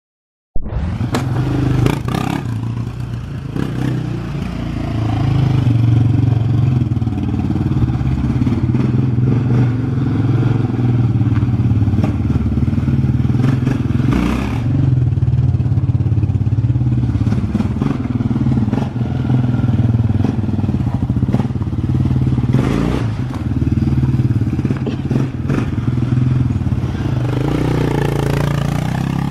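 Yamaha Raptor 660 quad's single-cylinder four-stroke engine running as it is ridden, the revs rising and falling with the throttle and climbing near the end. A few short knocks and clatters sound over it. The sound cuts in about half a second in.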